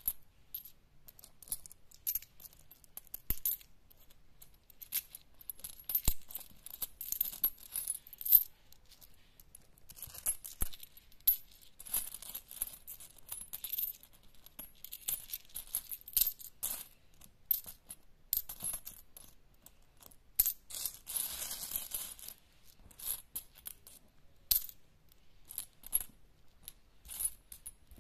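Pakistani coins clinking and jingling as they are picked up, sorted and piled in a hand on a cloth: irregular small metallic clicks throughout, with a denser burst of jingling about three quarters of the way through.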